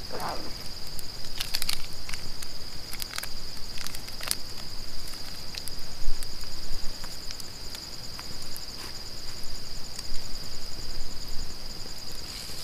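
Night insects trilling in a steady high-pitched chorus. A few sharp clicks and snaps sound over it, and there is a brief falling sound at the very start.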